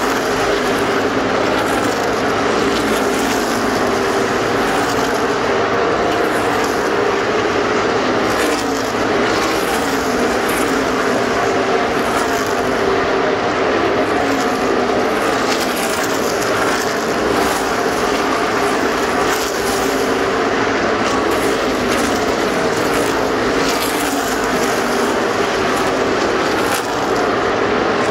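A field of NASCAR stock cars with pushrod V8 engines racing at full speed, a loud continuous engine sound. Overlapping engine notes rise and fall in pitch as car after car goes by.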